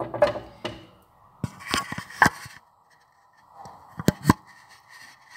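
Knocks and taps from the phone filming being handled and repositioned: a string of sharp clicks, with two close together about four seconds in.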